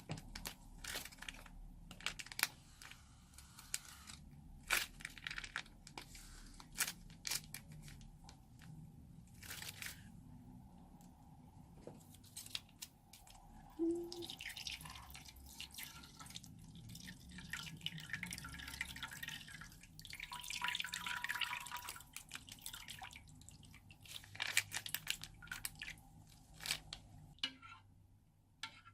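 Slime being pressed and squeezed by hand: a string of sharp sticky pops and crackles, with longer stretches of crackling squish in the middle.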